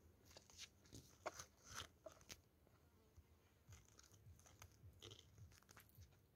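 Faint footsteps crunching on a gravel and pebble bank: scattered soft crunches and clicks in two short runs.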